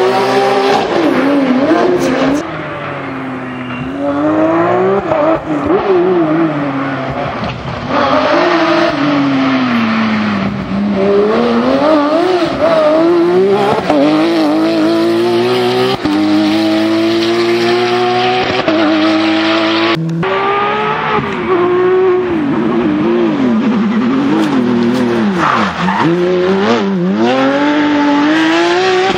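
Porsche 911 GT3 rally car's flat-six engine revving hard. Its pitch repeatedly climbs through the gears, drops on lifts and shifts, and climbs again.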